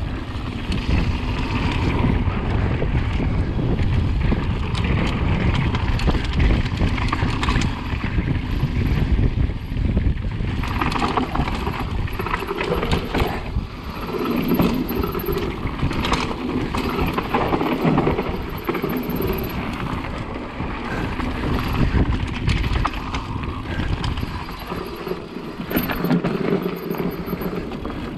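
Mountain bike descending a dirt singletrack at speed: wind on the microphone, tyres rolling over dirt, roots and stones, and the bike knocking and rattling over the bumps.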